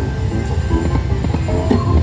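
Huff n' Puff slot machine's electronic game music, short pitched tones and jingles, with a rising tone near the end, over a continuous low casino-floor rumble.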